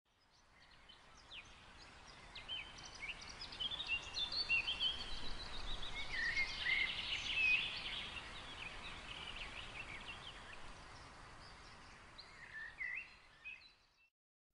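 Several songbirds chirping and whistling over a faint steady hiss of woodland ambience, fading in over the first few seconds and fading out near the end.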